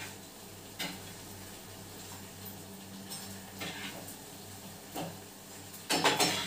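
Steel slotted spoon clinking and scraping against a steel frying pan while bread pieces are turned in hot ghee: a few light clicks, then a quick cluster of clatter near the end, over a steady low hum.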